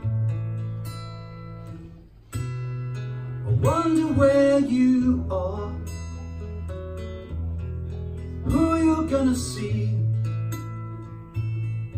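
Acoustic guitar strumming slow chords while a fiddle plays the melody of a folk song's instrumental introduction. The fiddle slides into louder phrases about four seconds in and again about eight seconds in.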